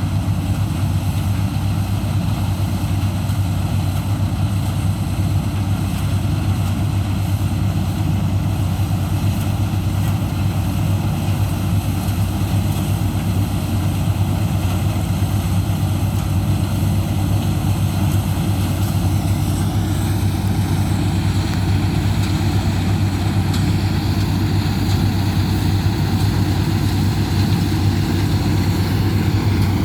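Combine harvester running steadily while harvesting mustard: a constant, loud engine and machinery drone with a strong low hum. About two-thirds of the way through, a higher whine shifts up in pitch.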